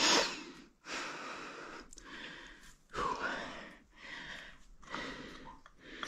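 A man breathing heavily, about one breath a second, the first breath the loudest.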